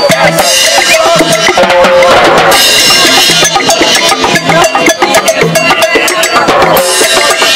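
Live Latin street percussion: timbales struck with sticks in a fast rhythm over a conga, with cymbal crashes about half a second in, again around two and a half seconds, and near the end.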